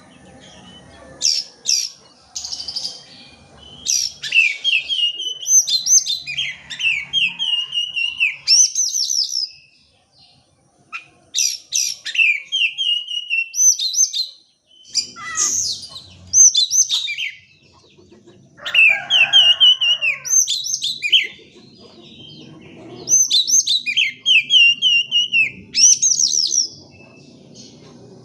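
Oriental magpie-robin (kacer) singing: bursts of varied whistled phrases and rapid runs of notes falling in pitch, broken by short pauses.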